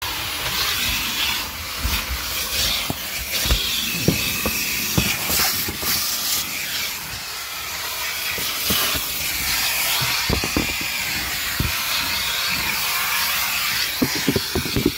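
Vacuum cleaner running with a steady rushing hiss of suction as its nozzle is worked over car carpet, with irregular low knocks and thumps throughout, bunching up near the end.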